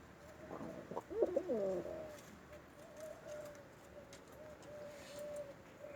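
Domestic pigeon cooing: a cluster of warbling coos about a second in, followed by a long, low, wavering coo.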